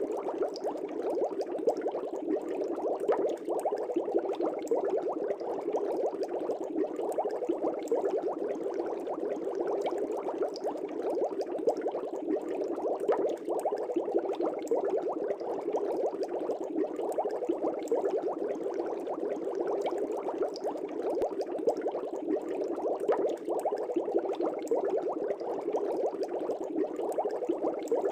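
Aquarium air bubbles rising through the water of a fish tank in a steady, dense bubbling, with faint tiny pops.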